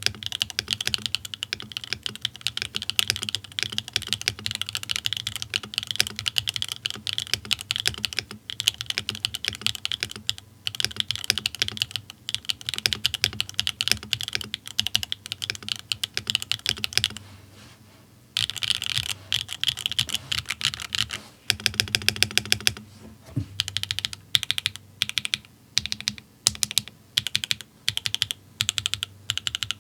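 Mechanical keyboard typing: SWK Catmint switches with GMK Tuzi clone keycaps on a Bakeneko65 with an aluminium plate. Fast continuous keystrokes, a short pause past the middle, then a quick even run of strokes and slower separate keypresses near the end.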